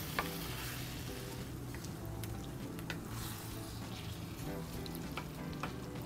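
Ground beef and tomato sauce sizzling in a wok while a wooden spatula stirs and turns it, with small clicks and scrapes of the spatula against the pan.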